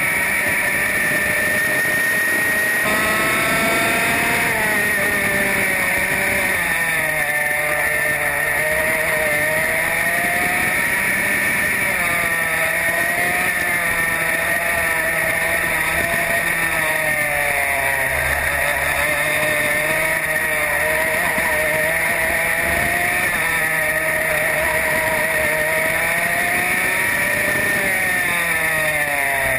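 Racing go-kart engine heard from on board at race pace, its pitch climbing on the straights and dropping under braking for the corners, over and over.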